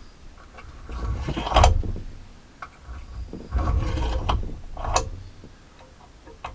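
Metal hand-tool work on a chainsaw: mechanical clicking and clattering in two spells, about a second in and about four seconds in, with a sharp click about five seconds in.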